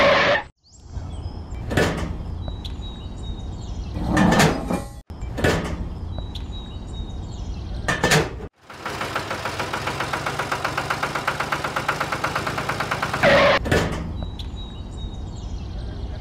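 Wooden toy trolley and parts knocking and clacking as they are hitched and set in place by hand, a few separate knocks. About nine seconds in comes a rapid, even buzzing rattle for some four seconds, typical of a small DC motor running.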